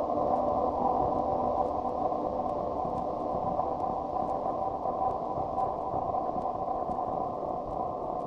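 Lowercase ambient musique concrète: a steady, muffled, static-like noise drone with a few faint held tones inside it and a low rumble beneath, dotted with a few faint clicks.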